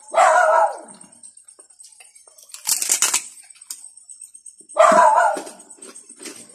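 A dog calling twice, once right at the start and again about five seconds in, each call about half a second long, with a short hissy noise in between.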